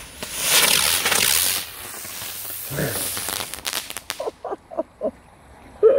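Two butterfly fireworks hissing as they spray sparks and fly up, loud for about a second and a half, then fainter, ending with a few sharp crackles about four seconds in.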